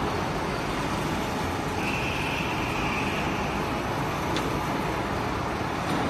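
Steady din of workshop machinery running, with a high whine for about a second around two seconds in and a single sharp click later on.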